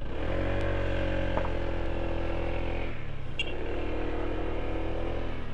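Honda ADV 160 scooter's single-cylinder engine running at steady revs on a climb. It eases off for a moment about three seconds in, then picks up again.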